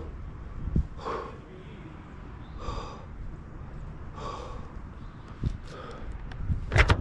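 A tree climber breathing heavily, three loud breaths a second or so apart, from the strain of working horizontally in the tree. A sharp click near the end.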